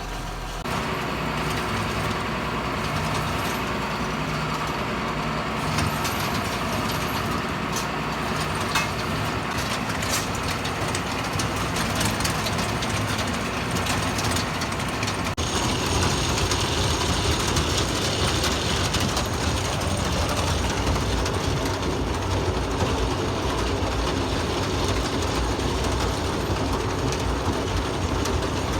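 Tractor engine running with a feed mixer wagon clattering steadily as the mixed feed is carried out and unloaded. About fifteen seconds in the sound shifts, with more low rumble after.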